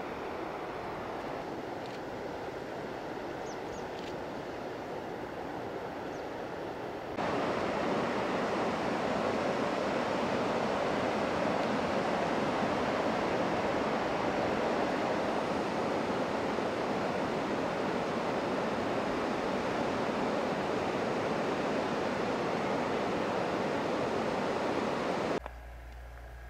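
River water rushing over a low weir and rapids, a steady rush that gets louder after a cut about seven seconds in. Near the end it cuts off suddenly to a quieter low hum.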